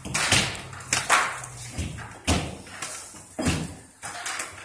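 Drywall being knocked down from a ceiling with a long-handled tool: a series of sharp crashes and thuds about a second apart as sheetrock is struck and pieces hit the floor, echoing in a large bare room.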